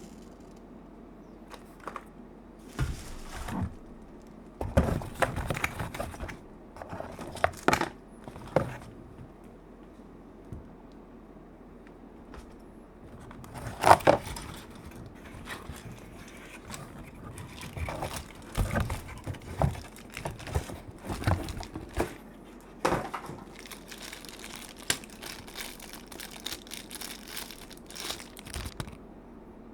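Keyboard packaging being unwrapped and handled: plastic and paper crinkling and rustling in irregular bursts, with sharper clicks and a pause of a few seconds in the middle.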